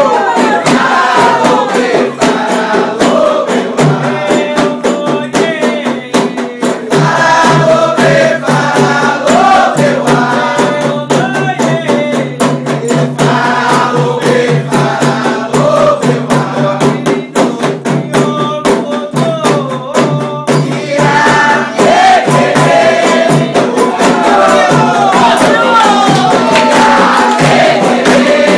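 Candomblé ritual song: a group of voices singing over steady, dense hand percussion with rattling strokes.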